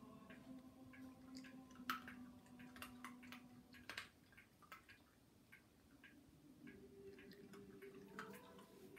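Faint, irregular small clicks and ticks from a border terrier puppy nosing through a fleece snuffle mat, over near-silent room tone.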